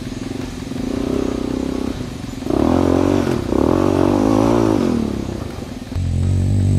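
Yamaha Warrior 350 ATV's single-cylinder four-stroke engine running at low revs, then revving up about two and a half seconds in, its pitch rising and falling for a few seconds before it eases off. Near the end the sound changes abruptly to a steadier, louder low drone.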